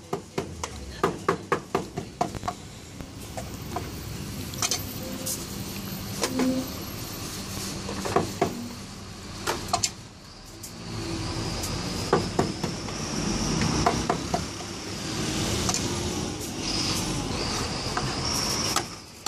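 A knife chopping cooked pork head meat on a cutting block: quick, even strokes about four a second for the first few seconds, then scattered knocks, with passing street traffic filling the second half.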